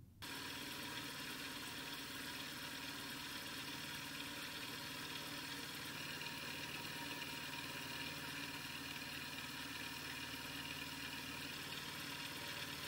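Vertical milling machine running steadily, its end mill side-milling a 6061 aluminium block.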